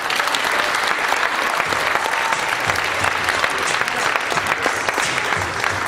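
Audience applauding: many hands clapping at once, starting abruptly and holding steady, easing a little near the end.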